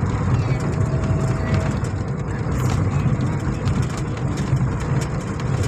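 Steady low rumble of a car's engine and tyres on the road, heard from inside the cabin while driving, with scattered light ticks throughout.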